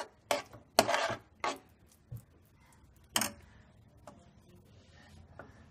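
Steel spoon clinking and scraping against a non-stick pan while stirring thick jam: several sharp clinks in the first second and a half, one more about three seconds in, then only a faint hum.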